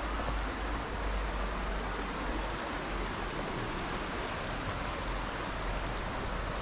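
Steady rush of a fast-flowing river, an even noise of water with no breaks, over a low rumble.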